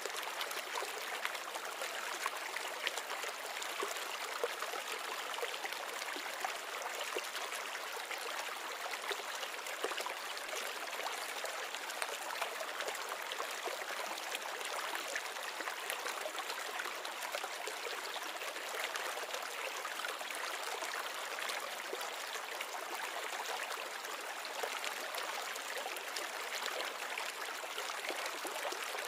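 Aquarium water trickling steadily, a continuous splashing flow with a fine crackle of small drips and bubbles.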